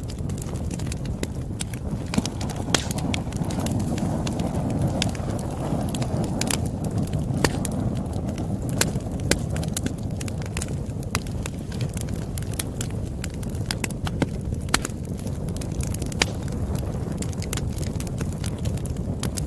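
Bonfire crackling: a steady low rush of burning with frequent, irregular sharp pops and snaps of burning wood.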